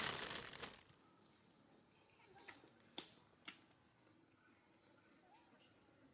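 Near silence: a short noisy rustle at the very start dies away within a second, then three faint clicks sound near the middle.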